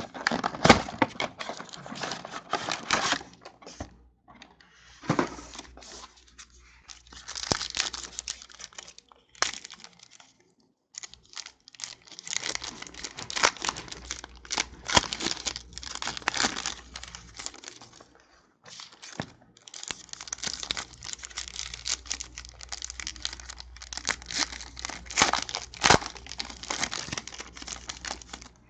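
A cardboard trading-card box is torn open, then plastic-wrapped card packs crinkle and tear in bursts with short pauses as they are opened and the cards are handled.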